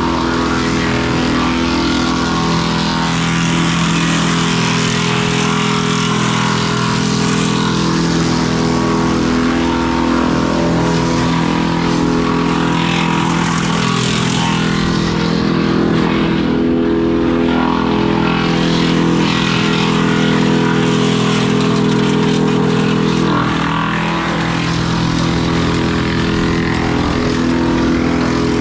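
A loud engine running at a steady, nearly constant speed, with a deep hum and a hissing noise above it.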